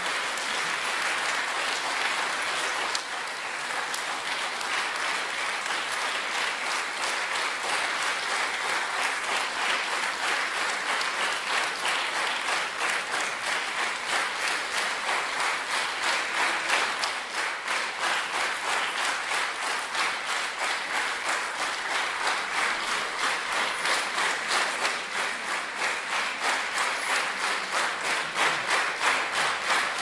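Audience applauding. About halfway through, the clapping falls into a steady beat together, about two or three claps a second.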